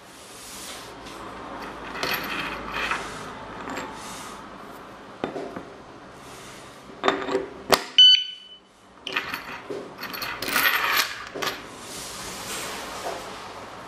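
Metal alarm padlock being handled, with rattling, rustling and sharp metallic clicks. About eight seconds in comes one loud clink followed by a brief high ring.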